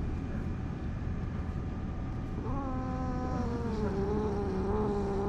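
Domestic cat growling in a bad mood: a long, low, drawn-out growl starts about halfway through, sags slightly in pitch and is still going at the end, an annoyed warning.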